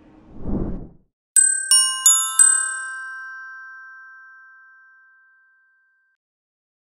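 Title-card sound effect: a short whoosh, then a jingle of four quick bell-like notes struck about a third of a second apart, which ring out and fade over a few seconds.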